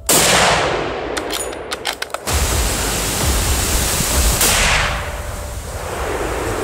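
Gunshots fired at deer: three loud shots, at the start, about two seconds in and about four and a half seconds in, each trailing into a long rumbling echo. A few sharp clicks fall between the first two.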